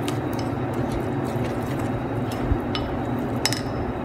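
Wooden spoon stirring a thick, wet spice marinade in a ceramic bowl: soft squelching scrapes with scattered light clicks of the spoon against the bowl, over a steady background hiss.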